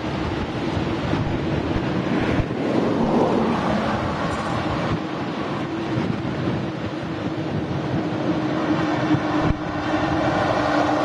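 Jet engines of a Boeing 787-9 Dreamliner running: a steady rush of noise with a steady low hum that drifts slightly lower near the end.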